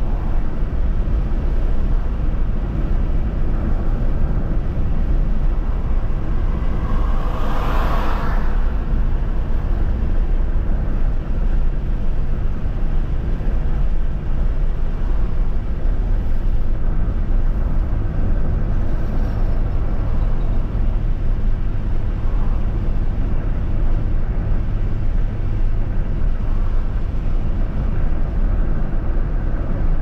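Car driving at highway speed, heard from inside the cabin: a steady low rumble of tyres and engine. About eight seconds in, a brief louder rushing swell rises and fades.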